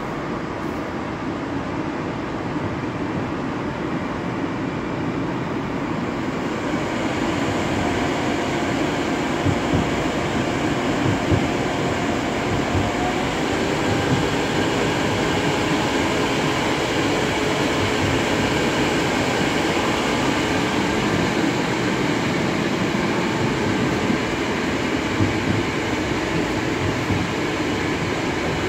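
Running noise of a Moscow metro 81-765.2 'Moskva' car heard from inside the passenger saloon, a steady rumble with wheel and rail noise. It grows louder over the first several seconds as the train gathers speed, then holds steady, with a few brief knocks.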